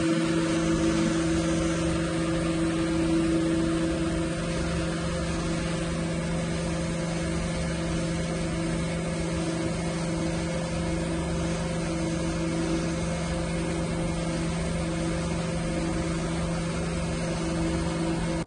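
Dental CAD/CAM milling machine milling a zirconia disc: a steady machine hum with several even tones over a hiss. It is slightly louder for the first few seconds.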